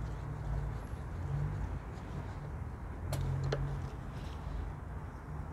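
Hand work with a screwdriver on a plastic door mirror housing: two sharp clicks a little past halfway, over a steady low background rumble.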